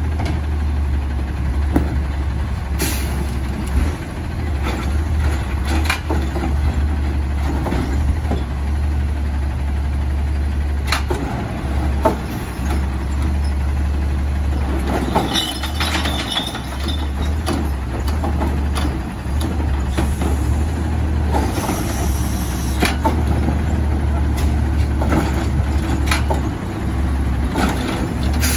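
Automated side-loader garbage truck running steadily while its arm lifts and dumps wheeled carts into the hopper, with repeated clanks and knocks from the carts and arm and a brief hiss about two-thirds of the way through.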